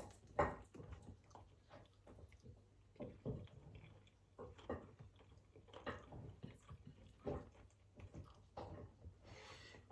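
A person chewing and biting food up close, in short irregular strokes with soft mouth clicks.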